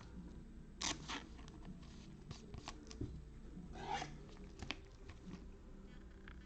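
Faint handling of trading cards: a few light taps, scrapes and a short swish as cards are set aside and sorted on a table.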